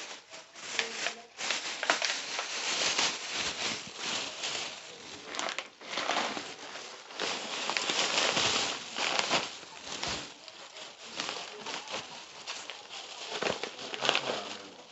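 Crinkly wrapping being handled and folded as food parcels are packed, rustling irregularly on and off.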